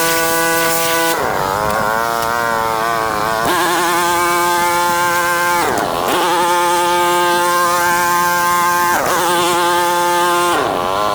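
Pressure washer running with a steady pitched hum and hiss. Its pitch sags and recovers about five times, each time the load on it changes.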